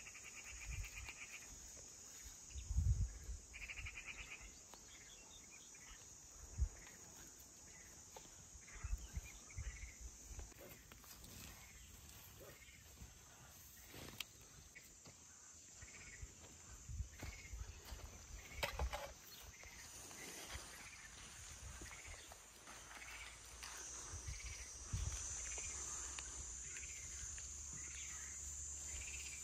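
Insects chirring steadily in an even, high-pitched drone, with a couple of short pulsed trills in the first few seconds. Scattered soft thumps and rustles come from hands picking among garden plants.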